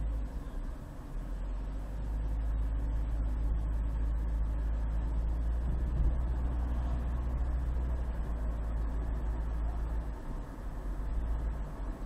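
Steady low rumble of a car driving slowly in city traffic: engine and road noise, dipping briefly about a second in and again near the end.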